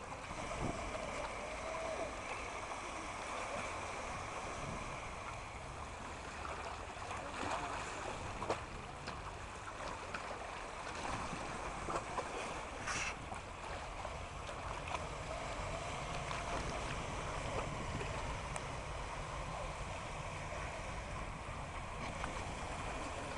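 Wind buffeting the microphone over small sea waves washing in, with the faint whine of the RC surfer's brushless electric motor rising and falling as it rides.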